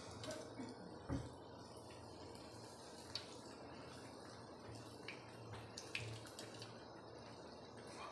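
Batter-coated potato slices deep-frying in oil on a low flame, a soft steady sizzle. A few light clicks and a knock about a second in come as a slotted steel spoon works the fritters in the pan.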